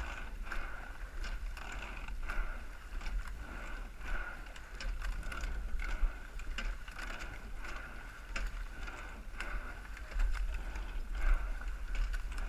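Rowing eight under way: oars knocking in their oarlocks and sliding seats clicking and rolling, rising and falling with each stroke about every two seconds, over water rushing along the hull.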